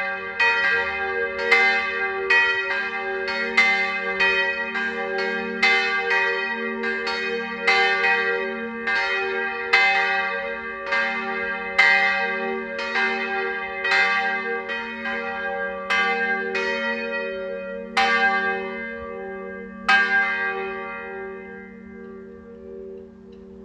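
Two swinging church bells ringing to call to a service, strikes coming about once a second over a lasting hum. Toward the end the strikes thin out and stop, and the ringing dies away as the peal ends.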